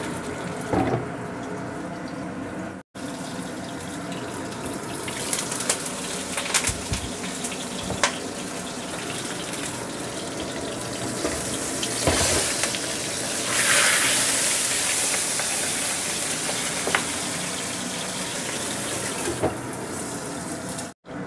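Whole fish frying in hot oil in a nonstick wok: a steady sizzle and spatter, with a few light clicks, that grows louder about a third of the way in and is loudest for a couple of seconds a little past the middle.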